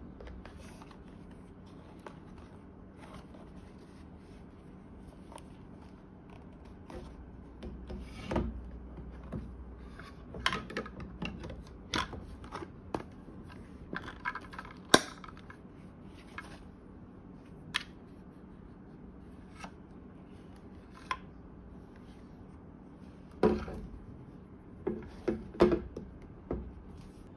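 Hard plastic clicks, taps and rubbing as a Subea full-face snorkel mask and its snorkel tube are handled on a table. The sharpest click comes about halfway through, and a cluster of knocks comes near the end.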